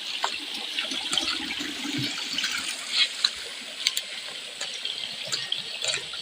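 Water running and splashing over rocks in a steady hiss, with small scattered splashes.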